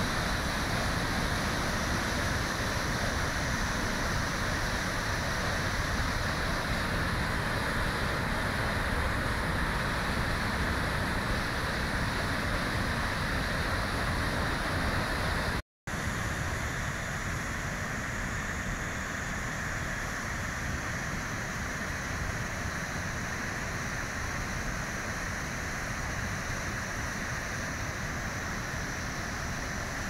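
Putna waterfall rushing steadily down a rocky gorge, a constant even noise. It cuts out for a moment about halfway through and comes back slightly quieter.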